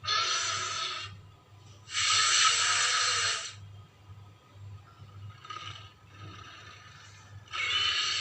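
Godzilla (2002) roar sound effect: harsh, rasping cries, a short one at the start, a longer one of about a second and a half about two seconds in, a faint one in the middle and another starting near the end.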